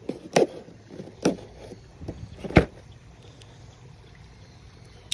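A cardboard box being handled: four sharp knocks and scrapes, the loudest about two and a half seconds in, over a low steady background rumble.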